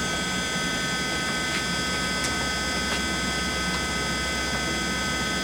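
1961 LeBlond 4025NK heavy-duty gap lathe running under power with the carriage power feed engaged in reverse, feeding away from the chuck: a steady mechanical hum with several constant high whining tones and a few faint ticks.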